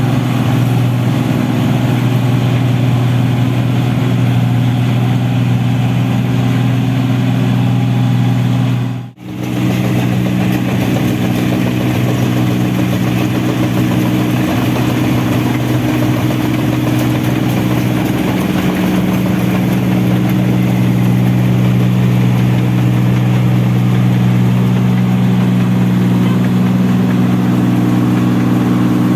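Engine of a rice combine harvester running steadily at a constant speed, with a brief break about nine seconds in, after which the running sound resumes at a slightly different pitch.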